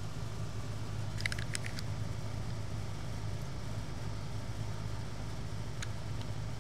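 Steady low hum of a running motor, with a brief cluster of faint clicks about a second in.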